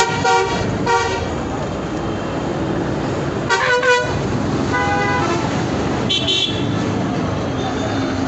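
Busy road traffic with vehicle horns honking again and again: five or so short horn blasts from different vehicles, one about three and a half seconds in wavering in pitch, over a steady rumble of engines and road noise.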